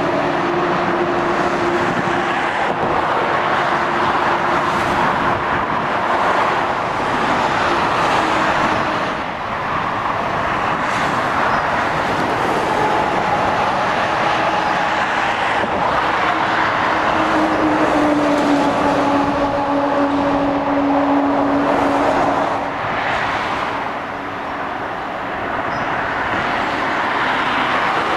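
Motorway traffic going by: continuous tyre noise and the diesel engines of lorries and cars, with engine hums that drop in pitch as vehicles pass.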